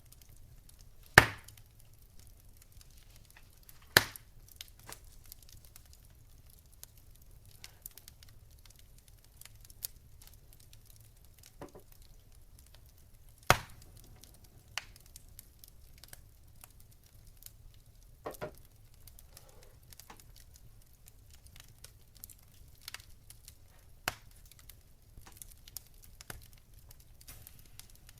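Wood fire crackling: sparse, irregular sharp pops and snaps, three of them much louder than the rest, over a faint low hum.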